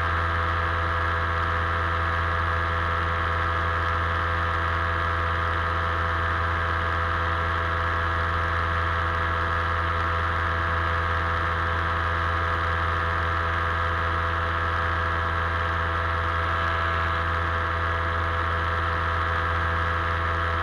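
Paramotor engine and propeller running at a steady throttle in flight, an even hum whose pitch does not change.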